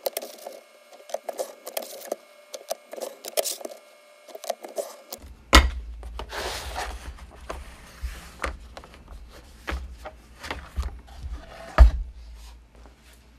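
Bevel blade of a Logan mid-size mat cutter pushed along its rail through mat board, giving a rapid, steady scraping for about five seconds. Then clunks, rustling and two sharp knocks as the cutter and the cut mat board are handled.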